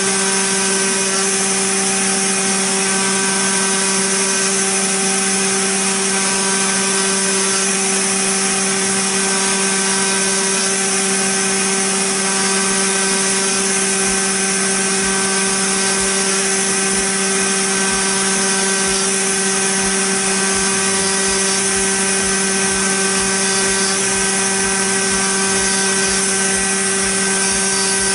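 DIY CNC milling spindle running steadily and cutting into a brass plate: an unchanging whine over a steady hiss of milling.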